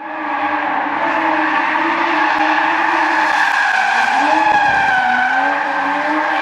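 BMW F31 335i estate drifting: its tyres squeal steadily over the turbocharged straight-six engine held at high revs. The pitch dips and climbs again about four seconds in.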